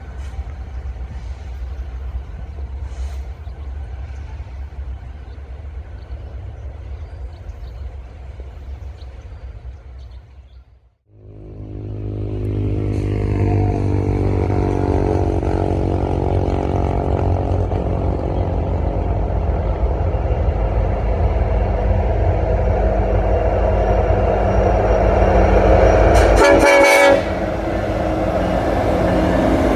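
Freight train's diesel locomotives rumbling. After a brief cutout about 11 seconds in, a locomotive approaches and grows louder, its air horn sounding.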